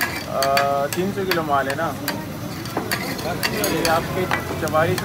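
Beef liver frying in oil on a large flat griddle (tawa), sizzling, with a metal spatula clicking and scraping against the griddle many times, and bits of people's voices over it.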